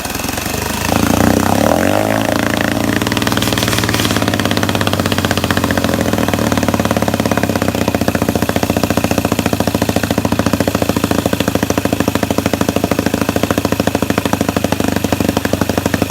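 1964 Wards Sea King 3 hp outboard motor catching about a second in, its pitch falling as it settles. It then runs at a steady, fast-firing idle, rich, with the mixture needle turned all the way rich for starting.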